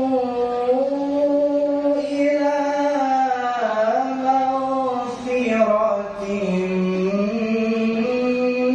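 A man's voice reciting the Qur'an in a melodic tilawah style, amplified through a handheld microphone. He draws out long, ornamented notes that slowly bend in pitch, sinking lower about two-thirds of the way through before climbing again.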